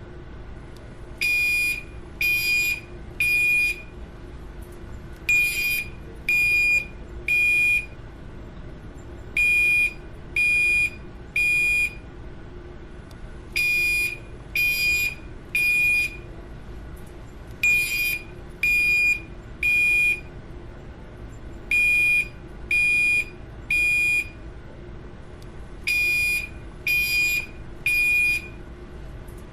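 Building fire alarm horn sounding the temporal-three evacuation pattern: three loud, high-pitched beeps about a second apart, then a short pause, repeating about every four seconds.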